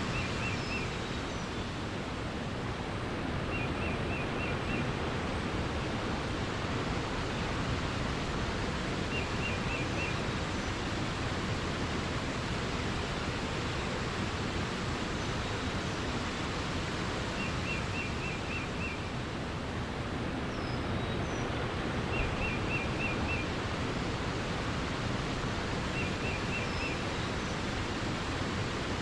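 Steady rush of flowing water, with a bird repeating a short phrase of about five quick high notes every few seconds and a few faint higher chirps.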